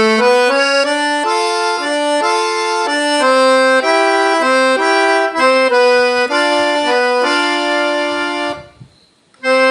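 Accordion playing a melody mostly in two-note harmonies, each pair held briefly before moving to the next; the playing breaks off for a moment near the end.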